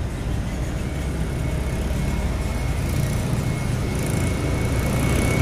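Steady hum of road traffic, cars and buses running on the street and flyover below, with a faint thin high whine starting about a second in.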